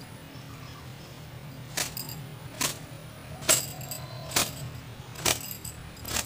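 A towel being flicked through long wet hair to dry it: six sharp snaps, about one a second, starting a couple of seconds in.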